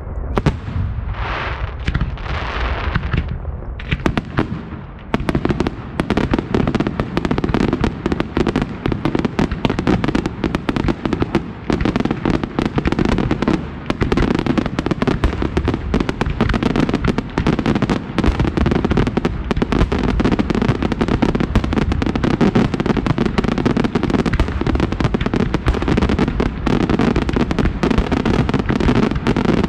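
Fireworks display: a few seconds of rising hissing swells, then from about five seconds in a dense, unbroken barrage of rapid bangs and cracks.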